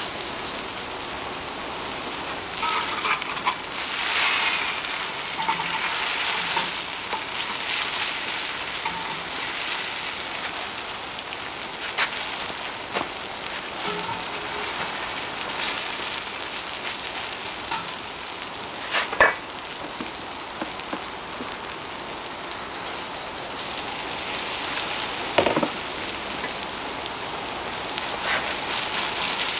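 Shredded pumpkin pancakes sizzling steadily in oil on a cast-iron pot-lid griddle, with a few sharp taps and scrapes of the metal spatula and wooden turner against the lid, the loudest about two-thirds of the way through.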